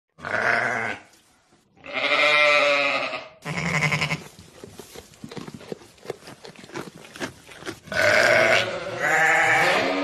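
Sheep bleating, five calls in all, the longest about two seconds in, with a stretch of soft irregular crackling between the calls in the middle.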